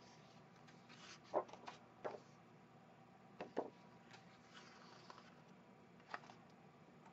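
Printed paper sheets handled on a cutting mat: a few brief, soft rustles and taps as sheets are lifted, shuffled and set down, over faint room hum.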